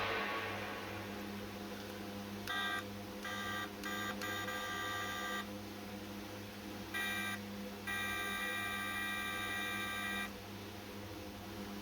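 Electronic beeping tones in several separate bursts: three short beeps, a longer tone, another short beep, then a long tone of about two seconds, over a faint steady low hum.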